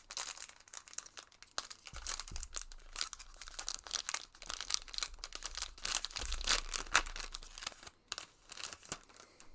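Plastic trading-card packaging crinkling and tearing as it is handled and torn open, an irregular run of crackles that thins out near the end.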